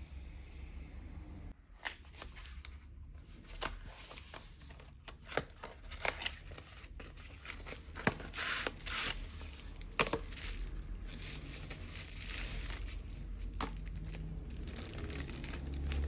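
Small sharp clicks, scrapes and crinkling as a smartphone is taken apart by hand for a screen replacement, over a steady low hum.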